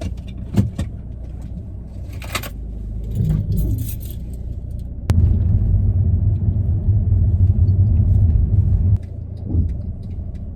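Inside a moving 2011 Mercedes C220 CDI, the car runs with a steady low drone and several sharp knocks and rattles from the front suspension, whose control arm bushing has been blown out by a pothole. About halfway through, a much louder low rumble starts abruptly and stops abruptly about four seconds later.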